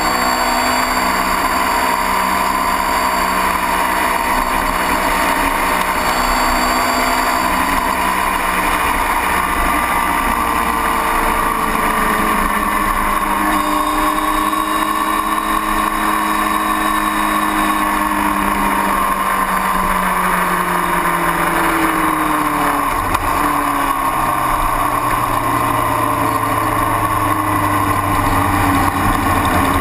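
Onboard sound of a motorcycle at speed: the engine running under a heavy rush of wind. Past the middle the engine note falls as the bike slows, and near the end it settles into a lower, steady note at low speed.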